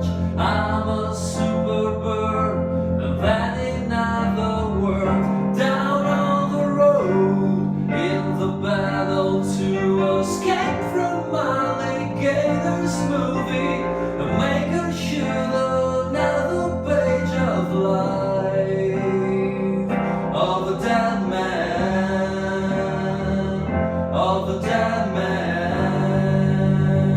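An indie rock band playing an unplugged song: plucked guitar notes over sustained low notes that change every few seconds.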